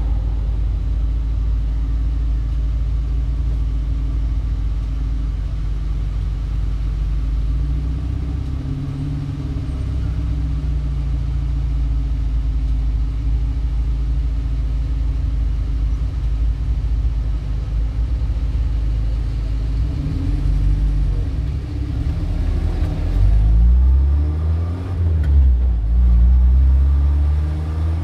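Car engine running with a low, steady rumble; over the last several seconds it revs up and down, its pitch sweeping and the sound growing louder.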